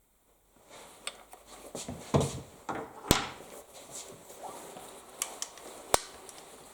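Handling noises from a bolt-action rifle and its fittings being moved about: rubbing with scattered clicks and knocks, two sharp clicks standing out about three seconds in and about six seconds in.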